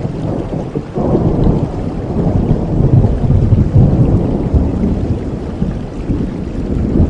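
Steady rain with a long, low roll of thunder that builds about a second in, is loudest in the middle and eases off, then swells again near the end.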